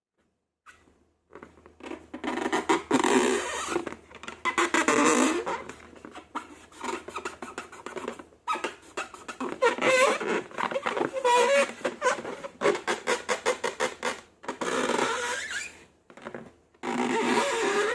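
Slime and rubber balloons being squeezed and handled: wet squelching with wavering rubbery squeaks, in stretches of a few seconds with short pauses.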